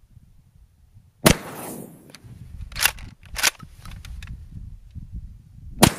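Benelli Nova 12-gauge pump-action shotgun firing Foster slugs: two shots about four and a half seconds apart, each with a long rolling echo. Between the shots come two sharp clacks as the pump is worked back and forward.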